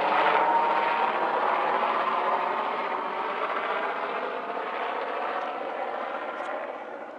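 Large helicopter flying overhead, its rotor and engine noise fading steadily as it moves away.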